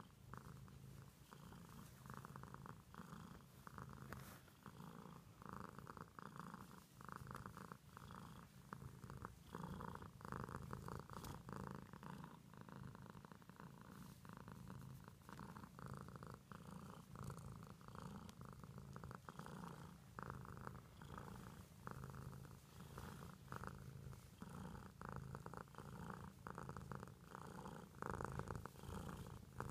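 Domestic cat purring steadily while being stroked on the head: a faint, continuous rumble that swells and eases in regular pulses about every second or two.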